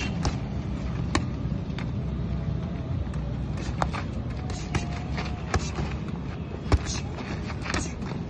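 Boxing gloves smacking during sparring, about a dozen scattered sharp hits, the loudest one about a second and a half before the end, over a steady low rumble.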